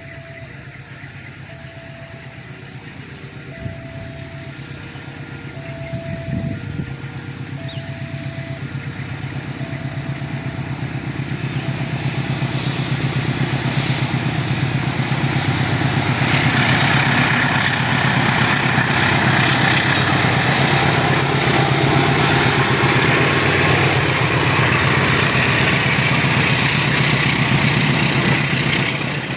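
A level-crossing warning beeps on and off about once a second while a diesel train approaches. Its engine hum grows steadily louder until, from about halfway in, the locomotive and its rolling wheels pass close by in a loud, steady rumble.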